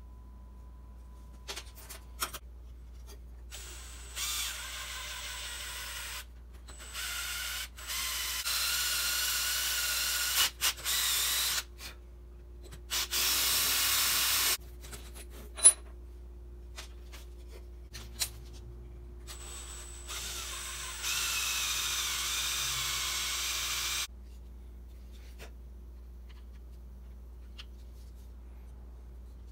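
Electric drill run in about six short bursts, the motor whining and changing pitch as the bit cuts, while holes are drilled for the handsaw handle's brass screws. Light clicks and knocks of handling come between the bursts.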